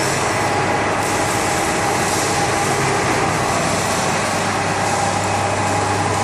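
Hydraulic plate shear's pump motor running steadily, a constant hum under a dense mechanical whir, with the machine idle between cuts.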